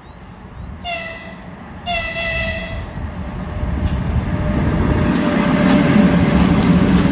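3ES6 three-section electric freight locomotive sounds its horn twice, a short blast then a longer one right after. The rumble of the locomotive and its freight wagons then grows loud as it comes alongside.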